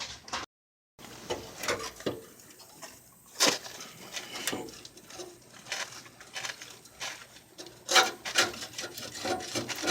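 Metal suspension parts and tools being handled during a control arm swap: irregular clinks and knocks, the loudest about three and a half and eight seconds in, with scraping and rubbing in between.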